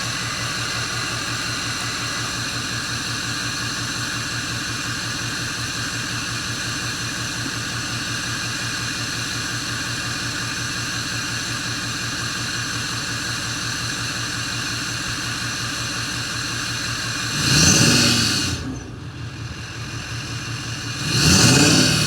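Deleted 6.7L Power Stroke diesel in a 2011 Ford F-250, fitted with a KC retro turbo kit, idling steadily with a high, whistling turbo whine. Near the end it is revved twice, briefly; each time engine and turbo pitch rise and fall, and the turbo sounds like a jet.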